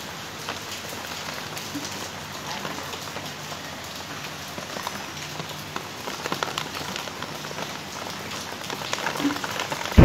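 Rain falling steadily in a storm, with many scattered drop impacts spread evenly through the sound.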